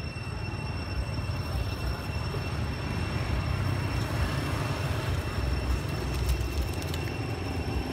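Steady low background rumble with a faint, thin high whine held steady above it; no distinct event stands out.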